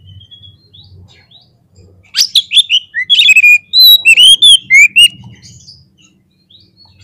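Oriental magpie-robin (kacer) calling: faint thin chirps at first, then about two seconds in a loud run of sharp, rapidly repeated whistled notes and clicks lasting about three seconds. This is the excited, fighting-mood calling of a male kacer, used as a lure to rouse other kacer.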